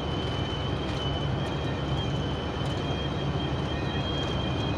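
A steady high-pitched whistle inside the cab of a moving vehicle, wavering slightly in pitch, over the low drone of engine and road noise.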